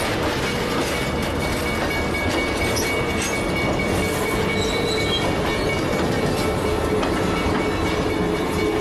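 Grand Canyon Railway stainless-steel passenger cars rolling past at close range: a steady rumble with wheels clattering over the rail joints and a thin, steady high tone running through it.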